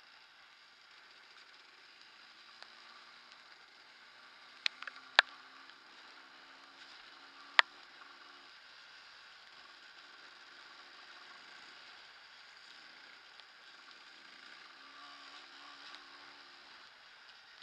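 Faint running of a Yamaha DT230 Lanza single-cylinder two-stroke trail bike riding a muddy track, its note coming and going. A few sharp knocks stand out around the middle.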